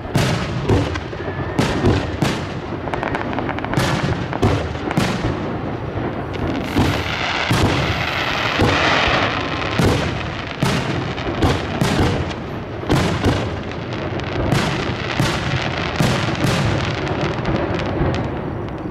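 Aerial fireworks shells bursting in quick succession, about two sharp bangs a second, with a dense hiss swelling around the middle.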